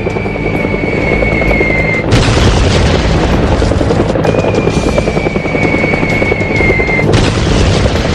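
Battle sound effects: a whistle falling slowly in pitch, ended by a loud explosion, twice, over a continuous din of rumble and noise.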